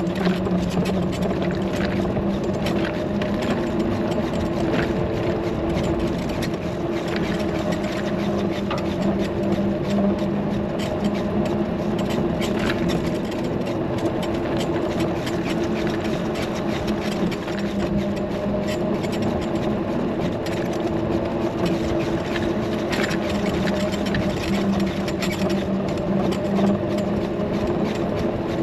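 A motor running at a steady pitch, with scattered faint clicks.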